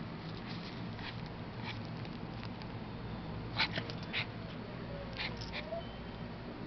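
A pug making a few faint, short whines, with several sharp clicks or rustles in the middle of the stretch.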